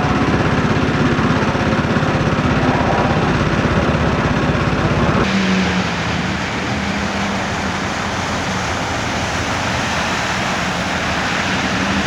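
An engine running steadily with a fast, even pulse. About five seconds in, the sound changes abruptly to a somewhat quieter engine hum with a steady low tone.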